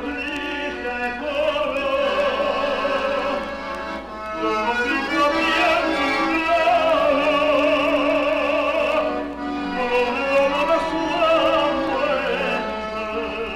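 Operatic-style singing with a strong vibrato over instrumental music.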